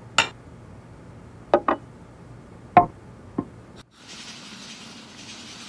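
Several short, sharp knocks and clinks of hard kitchen objects, some in quick pairs, followed about four seconds in by a faint steady hiss.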